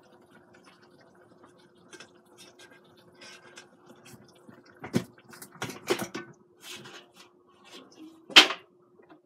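Kitchen tongs clicking and knocking against a rice cooker's inner pot as potatoes are lifted out, in a run of short handling sounds about five to seven seconds in, with the loudest sharp rattle near the end. A faint steady hum runs underneath.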